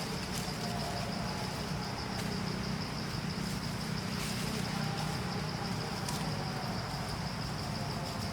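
Insects, crickets or cicadas, buzzing steadily at a high pitch, over a steady low hum.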